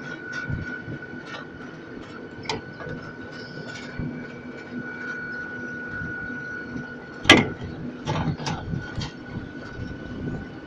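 Panoramabahn ride train running: a steady hum with a thin high whine, scattered clicks and rattles, and one sharp loud clack about seven seconds in followed by a few smaller knocks.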